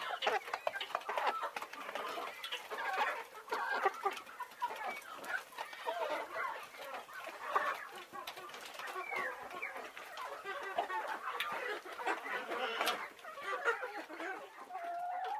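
A flock of hens clucking, with many short, overlapping calls all through.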